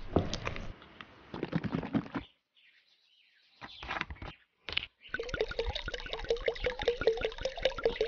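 A spatula scraping and stirring thick cream cheese in a plastic bowl. After a short pause and a few handling sounds as a cream carton's cap is opened, cream pours from the carton into a plastic measuring jug, glugging rapidly at about five glugs a second for the last three seconds.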